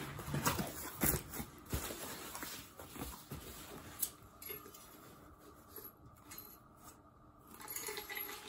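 Rummaging in a cardboard box of packing: rustling with a few sharp clicks and light knocks as metal exhaust parts are handled and lifted out.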